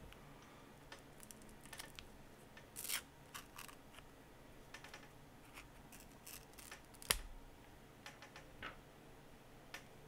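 Plastic opening pick scraping and clicking along the glued edge of a Samsung Galaxy S22 Ultra's back glass as it is pried open, with one sharp snap just after seven seconds in.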